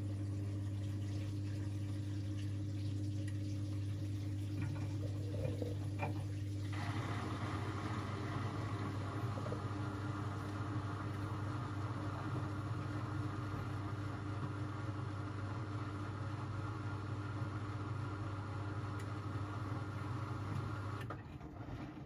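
Miele W 426 washing machine moving water: a steady electrical hum with a rushing, flowing-water noise that joins it about seven seconds in. Both stop abruptly near the end.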